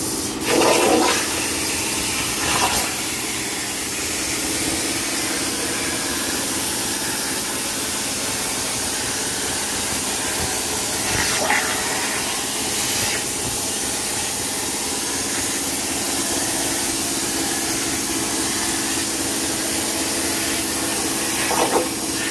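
CNC plasma torch cutting steel sheet: a steady, loud hiss of the plasma arc and its air jet over a low hum, with a few brief louder moments near the start, in the middle and near the end.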